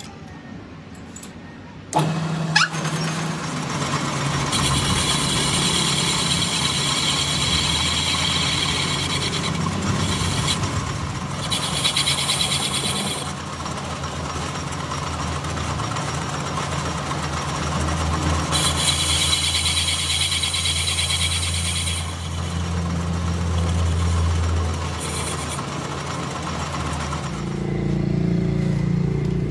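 Metal lathe starting up suddenly about two seconds in, then running steadily with a low motor hum while its cutting tool turns the boss of a motorcycle wheel hub. Two long stretches of loud, high-pitched cutting noise come and go as the tool works the metal.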